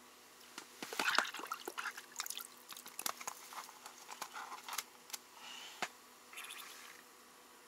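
Quick light clicks and taps with short rustles: hands handling ice-fishing tackle and a paper bait packet.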